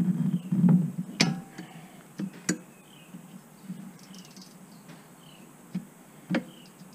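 Wrench clicks and handling noise as the valve adjuster lock nuts are loosened on a Honda Rancher 350 engine: a low rustle at first, then a few sharp metallic clicks spread out over several seconds. Faint short chirps repeat about once a second behind it.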